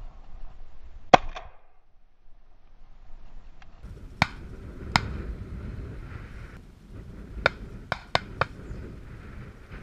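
A shotgun shot at a flushed rooster pheasant about a second in, the loudest sound, then several quieter sharp cracks from about four seconds on, over low wind noise on the microphone.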